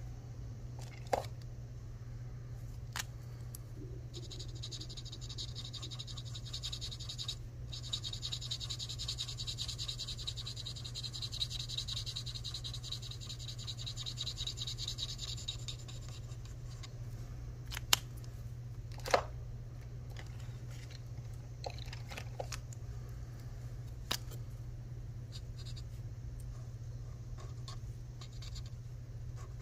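Felt-tip marker scribbling quickly back and forth on paper as a small shape is coloured in. The scratchy scribbling runs from a few seconds in to about halfway, with a few sharp clicks and taps of the markers being handled and a low steady hum underneath.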